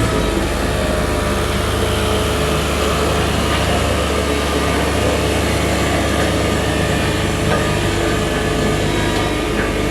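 Engine of a heavy road-works machine running steadily, with a constant low drone.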